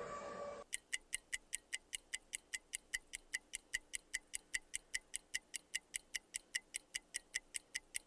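An air raid siren sounding a steady tone cuts off suddenly under a second in. Then a clock-ticking countdown sound effect runs at about four ticks a second.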